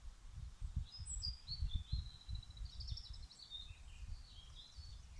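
A songbird singing a high, warbling phrase from about a second in until past the middle, over an uneven low rumble on the phone's microphone.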